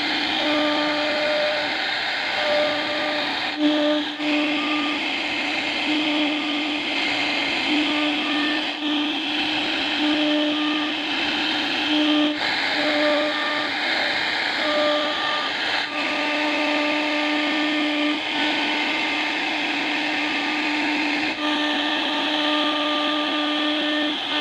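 CNC router cutting wood: a steady hiss from the spindle and cutting, with a pitched hum that starts and stops in short stretches as the machine moves from cut to cut.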